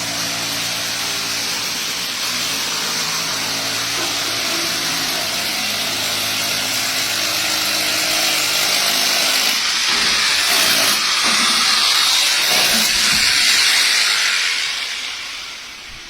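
Diesel generator set running with a steady low engine hum under a loud rushing hiss. The hiss swells brighter about two-thirds of the way in, then fades out near the end.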